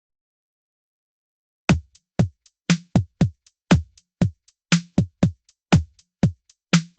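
Electronic drum-machine beat: a kick drum with a thud that falls in pitch, about twice a second, with light hi-hat-like ticks between the kicks. It starts a little under two seconds in.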